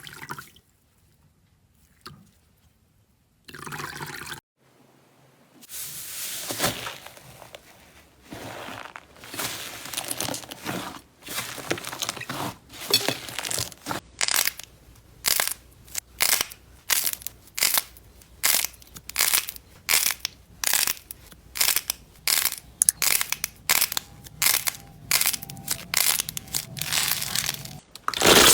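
Crunchy slime being pressed and worked, giving a run of sharp crackling crunches, roughly two a second, that starts a few seconds in and grows busier toward the end.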